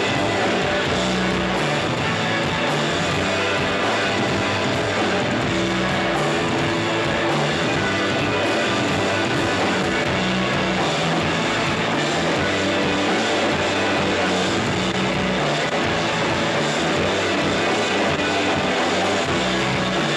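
Shoegaze rock band playing live, a loud, dense wall of electric guitars with shifting bass notes underneath.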